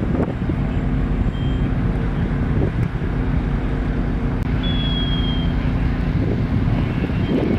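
Fire engine running steadily, a constant low hum with several held tones. A brief high beep sounds about five seconds in.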